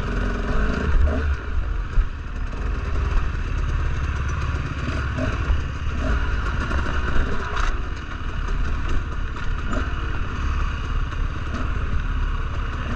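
Dirt bike engine running, its revs rising and falling, over a heavy low rumble of wind on the microphone.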